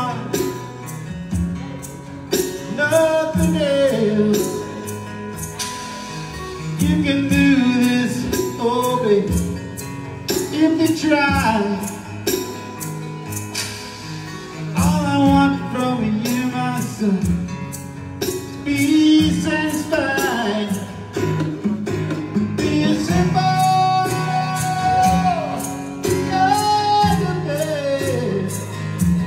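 Live acoustic duo performing: acoustic guitars strummed in a steady rhythm, with singing over them.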